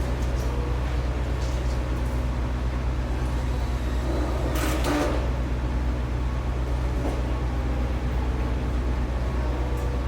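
Steady low mechanical hum, like an engine or machinery running, with a brief hiss about four and a half seconds in.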